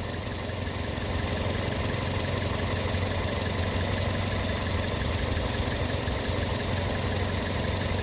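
Car engine idling steadily, just after an induced vacuum leak at the purge valve has been shut off and the fuel mixture is settling back.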